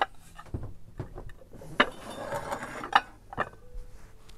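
Footsteps on a wooden floor with scattered knocks and light clinks as Bunzlau Castle stoneware dishes are handled and set down, and a brief rustle about two seconds in.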